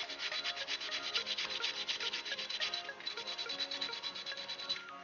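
Maroon Scotch-Brite abrasive pad scuffing the old green paint on a motorcycle wheel, in rapid, even back-and-forth strokes that stop near the end. It is prepping the flaking paint for primer.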